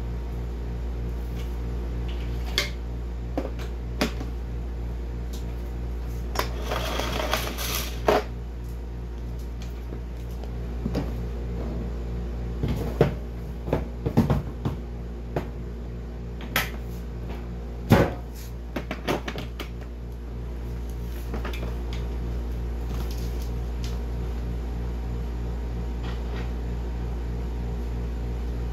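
Scattered household knocks, clicks and clatter over a steady low hum, with a longer rustling burst about seven seconds in and the sharpest knock about eighteen seconds in.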